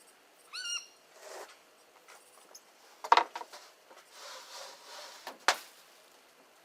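A short arched animal call, most like a bird, just after the start. Then two sharp knocks, the first about three seconds in and the second about five and a half seconds in, with a rustling scrape between them.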